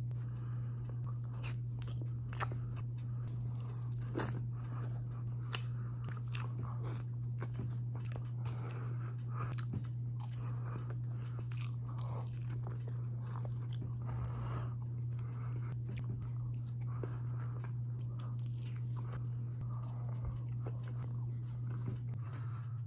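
Close-up eating sounds: repeated crunchy bites and chewing of crisp food, over a steady low hum.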